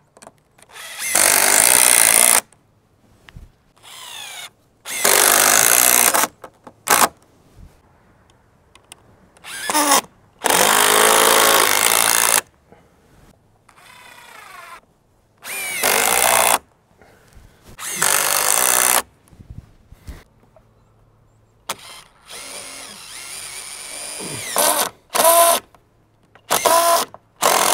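Power drill driving screws into coop framing in about ten short bursts, each one to two seconds long, with pauses between them.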